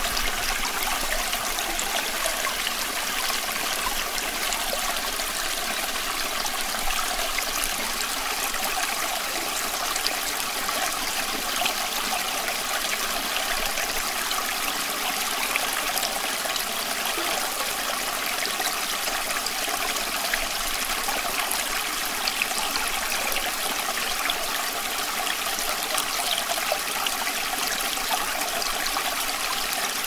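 Running water of a stream, flowing steadily with a light trickling, splashing texture.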